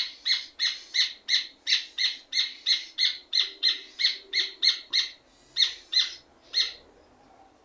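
Rufous hornero (red ovenbird) singing: a long series of loud, sharp, ringing notes at about three a second, quickening slightly, then slowing to a few spaced notes and stopping near the end.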